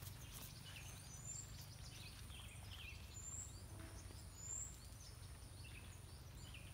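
Faint forest ambience: scattered high, thin bird chirps, a few short high notes repeating several times, over a low steady rumble.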